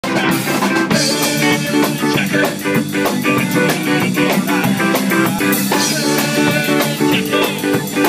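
A ska band playing live, with electric guitar and drum kit over a steady, even beat.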